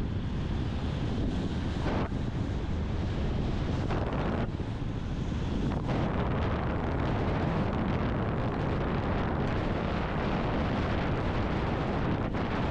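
Wind rushing over the microphone of a camera on a motorcycle riding at road speed, a steady roar heaviest in the low end, with the motorcycle's running and road noise underneath.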